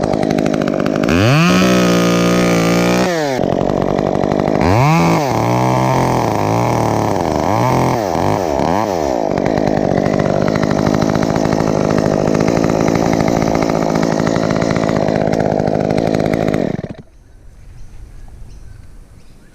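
Chainsaw engine running, revved up and held high for about two seconds, then revved in several quick bursts before settling to a steady run. It cuts out abruptly near the end.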